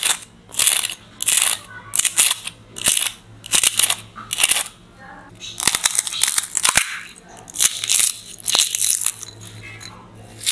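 Crisp, hollow pani puri shells (golgappa puris) crushed by hand one after another into a glass bowl, a run of about a dozen short, sharp crackling crunches at irregular intervals.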